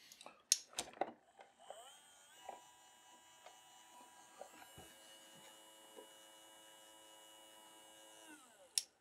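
A few clicks of plastic parts being handled, then a small 12-volt 10 RPM gear motor whining steadily for about six seconds. Its pitch rises as it starts, about two seconds in, and falls as it stops near the end.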